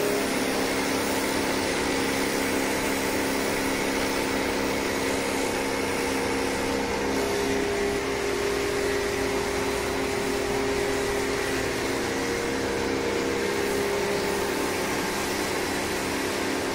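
Electric pressure washer running steadily: a motor-and-pump hum with the hiss of the water jet spraying onto a concrete slab.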